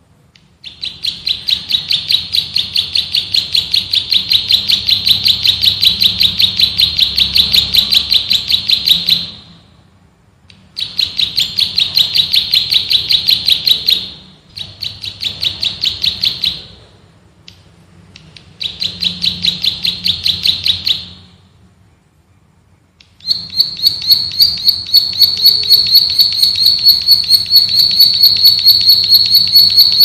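Plain prinia (prenjak sawah) singing in long, fast trills of evenly repeated high notes, about four notes a second, in five bouts broken by short pauses.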